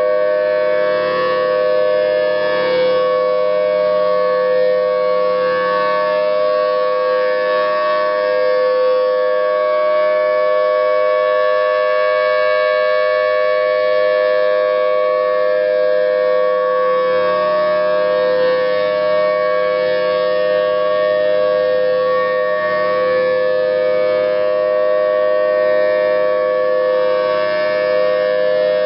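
Federal Signal Thunderbolt 1000T outdoor warning siren sounding a steady-pitched wail on test, swelling and fading gently every few seconds.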